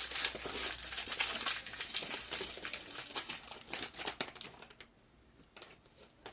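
Toy packaging crinkling and rustling as it is handled and unwrapped by hand. It dies down after about four and a half seconds to a few light rustles.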